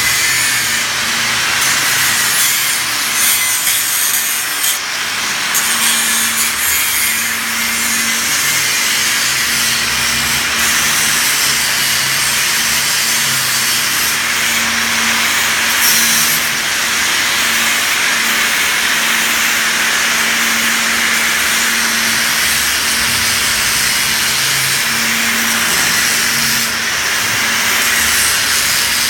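Arc welding on steel pipe: a steady, loud hiss from the welding arc that runs without a break, with a low hum coming and going underneath.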